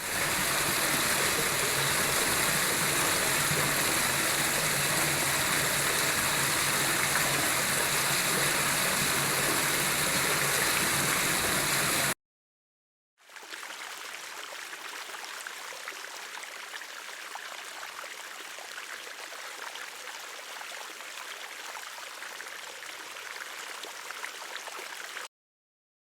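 Two recordings of steadily flowing water in turn: about twelve seconds of loud, full rushing water, then, after a second's silence, a quieter, thinner hiss of running water that stops suddenly near the end.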